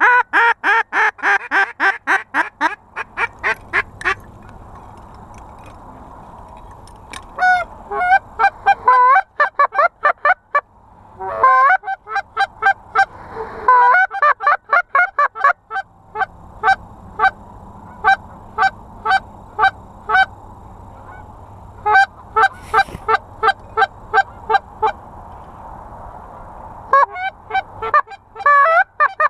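Geese honking in loud, rapid runs of short calls, about four or five a second, in several bursts separated by brief pauses.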